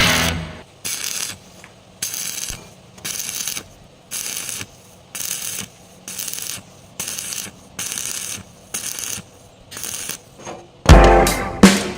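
A hand tool scraping across metal in steady back-and-forth strokes, about one a second, each stroke under half a second long, like a file or hand saw at work. Loud background music cuts back in near the end.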